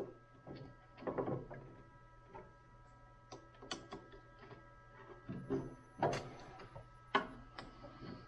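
Irregular light metal knocks, clicks and scraping as the steel carriage and apron parts of a mini lathe are handled and fitted together by hand. The sharpest knocks come about six and seven seconds in.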